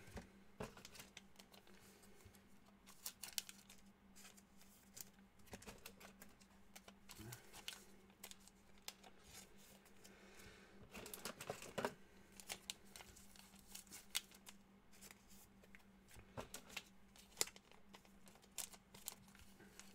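Faint handling of trading cards and pack wrappers on a table: scattered soft clicks, slides and crinkles, busiest about halfway through, over a faint steady hum.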